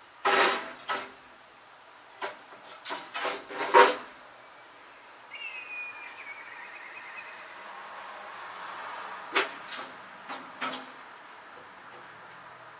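Wooden boards knocking and clattering against a metal trailer bed as they are set down and shifted, in three bunches of sharp knocks, the loudest about four seconds in. Between the bunches comes a short falling squeal.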